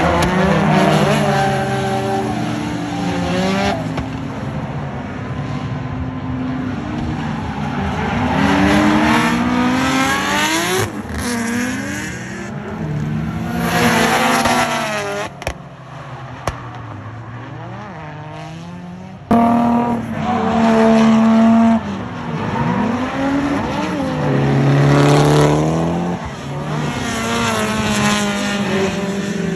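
Drift cars' engines revving hard, their pitch climbing and falling again and again as the cars slide through the corners in pairs, with tyre squeal. The level changes abruptly a few times, most sharply about two-thirds of the way through.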